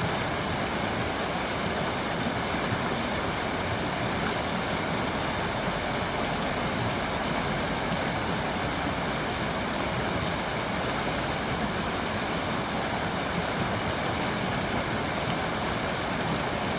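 Creek water flowing and babbling over stones, a steady, unbroken rush.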